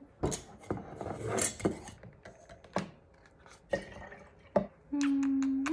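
Breast milk being emptied from a pump into a glass mason jar: plastic pump parts clicking and knocking against the jar, with a short pour of liquid about a second in. Near the end, a short hummed voice.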